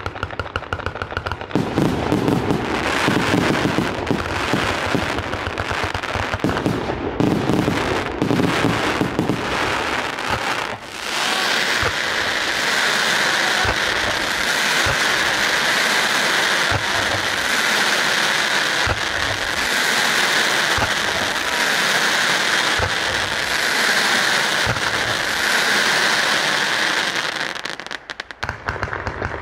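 A 1088-shot fireworks cake firing. For about the first eleven seconds it is a rapid volley of launch thumps and bursts. Then it turns to a steady hissing spray of fan-shaped comets with scattered thumps, which dips briefly near the end.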